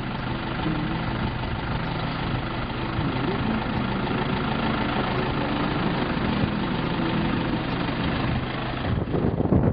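An engine idling steadily, a low hum with a few even tones in it. Near the end it breaks off abruptly into a rough, rushing wind noise.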